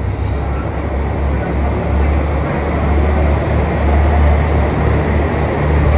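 JR Kyushu 813 series electric train standing at the platform, its equipment giving a steady low hum over a broad even rumble.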